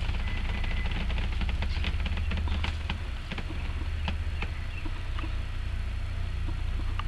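Crackling and snapping of willow twigs as moose calves chew and strip branches, a quick run of small clicks over the first three seconds and a few more later, over a steady low hum.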